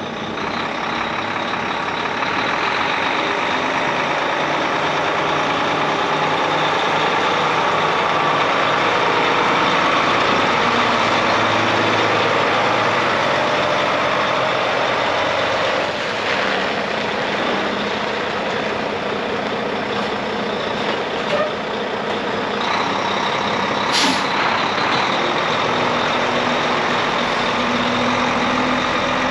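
A 2016 Volvo VNM64T day cab tractor's diesel engine runs steadily as the truck drives slowly. About 24 seconds in there is one short, sharp air-brake hiss.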